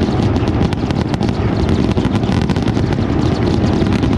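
Fireworks display, dense and continuous: a steady low rumble of booms with rapid crackling layered over it.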